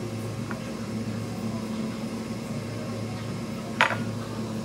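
Steady low mechanical hum, with one short sharp clink near the end.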